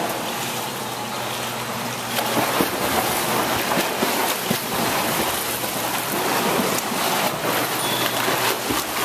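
Water splashing and churning from a swimmer's flutter kick and one-arm freestyle pull while holding a kickboard, a steady wash of splashing with many short splashes.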